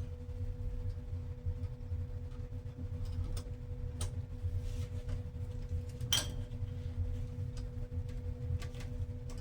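A few small clicks and taps of metal door-closer hardware and screws being handled, one sharper click about six seconds in, over a steady low hum.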